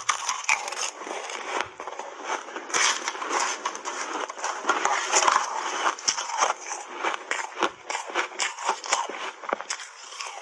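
Hard ice cake being crunched and chewed in big bites: a dense, continuous run of crackling, snapping crunches.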